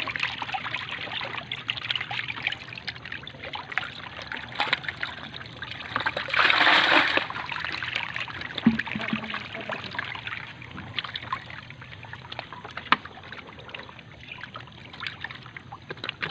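Water splashing and trickling as a crowd of African catfish thrash in shallow tubs, with many small splashes and one louder rush of splashing for about a second midway.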